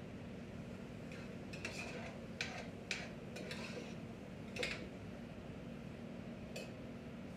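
Kitchen utensils and dishes clinking and knocking, about eight short, scattered strikes, over a steady low hum.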